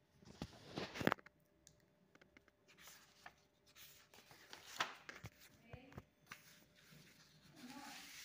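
Faint handling noise of printed paper sheets: short rustles and a few sharp clicks and taps, the loudest about a second in and another near the middle.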